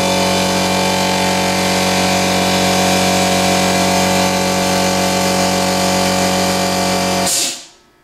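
ABAC 2HP direct-drive piston air compressor running loudly and steadily with a pitched motor-pump hum. Near the end it stops and winds down within about half a second.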